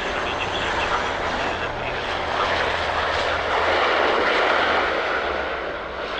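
Airliner engine noise swelling to a peak about four seconds in, then easing off, over a steady low hum.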